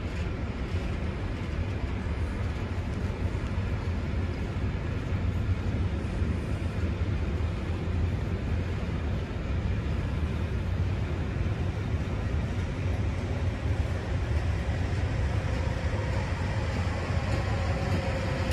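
ČD Cargo freight train of hopper wagons rolling past, a steady low rumble of wheels on rails. A faint whine comes in near the end.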